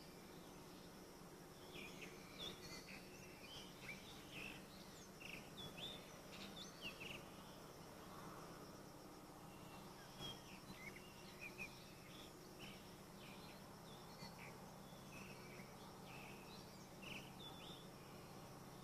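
Faint outdoor ambience: small birds chirping in short scattered calls, in two spells, over a steady high insect hum and a low steady hum.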